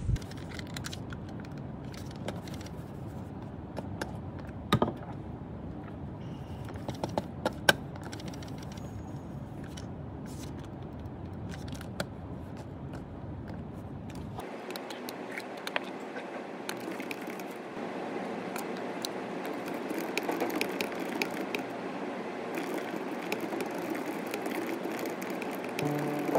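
Office room noise with scattered clicks and knocks. From about halfway through, laptop keyboard typing and mouse clicks take over as a busy run of small clicks.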